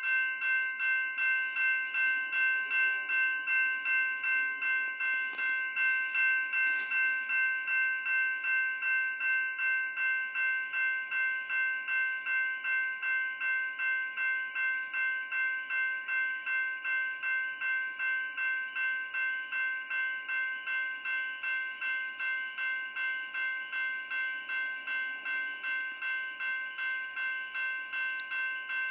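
Railway level crossing warning bell ringing steadily at about two strikes a second while the crossing lights flash and the boom gates are down, warning of an approaching train.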